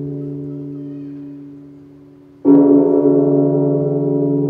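A deep struck tone with a long ring: one stroke fades away, then a fresh stroke hits about two and a half seconds in and rings on.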